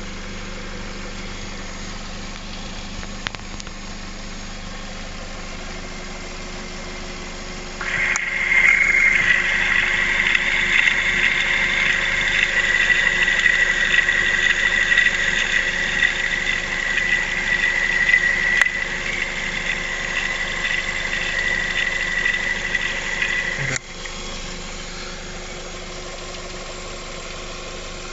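Lada Vesta 1.8 four-cylinder engine idling with its timing-belt cover off. About eight seconds in, a loud steady high whine comes in for about sixteen seconds, then cuts off suddenly. The whine is the whistle of the timing-belt rollers, heard through a listening device, with the tensioner roller the noisiest: a sign of its worn, dried-out bearing.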